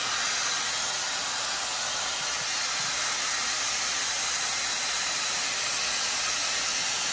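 Skin Research Institute StyleWrap 4-in-1 dryer brush running steadily, its fan blowing air through the Coanda curling barrel as hair wraps around it: an even rushing hiss.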